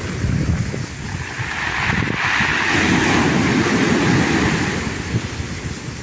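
Sea waves breaking and washing up the beach, the hiss of the foam swelling about two seconds in and fading near the end, with wind buffeting the microphone.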